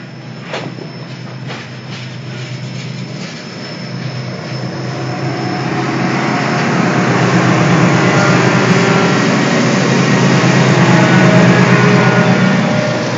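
A freight train rolling past close by: BNSF covered hopper cars with wheel clacks and a thin high squeal, then two BNSF diesel locomotives of the remote consist pass, their engines growing louder from about five seconds in and loudest near the end.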